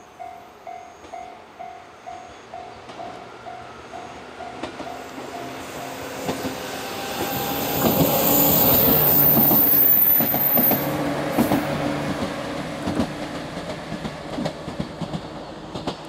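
Level-crossing bell dinging about twice a second for the first few seconds as a JR 103-series two-car electric train approaches. The train passes close by, loudest about eight to ten seconds in, with a high wheel squeal on the curve and wheels clacking over rail joints, then fades as it moves away.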